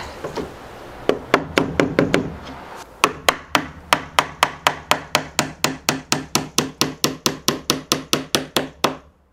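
Hammer driving nails into spruce tongue-and-groove cladding boards. A short run of blows comes first, then about three seconds in a long, even run at about four strikes a second that stops just before the end.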